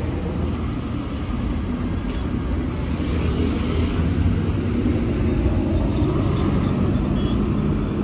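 Motorcycle riding at steady speed on the road: a steady low engine and road rumble with traffic noise.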